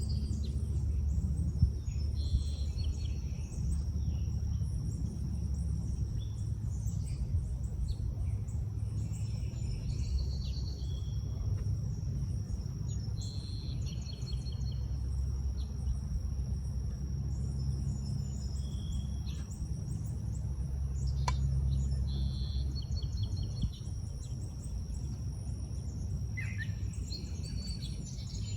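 Several songbirds calling and singing in short, scattered phrases and chirps over a steady low rumble, with a steady high-pitched whine that stops shortly before the end.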